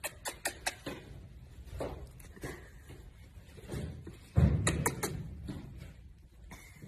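A quick run of kissing smacks in the first second, then a loud rubbing thump about halfway through as the sheep's head presses against the phone and jacket, with soft rustling around it.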